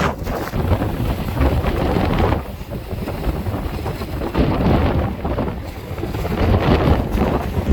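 Gusty wind of about 90 km/h buffeting the microphone, a loud low rumble that eases twice and builds again near the end.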